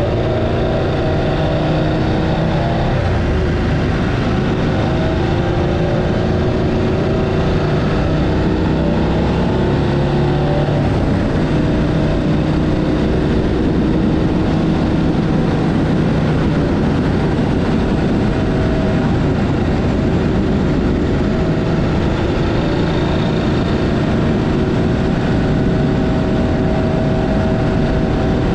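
Adventure motorcycle engine running under way, its pitch stepping up and down every few seconds with speed, under a constant rush of wind noise.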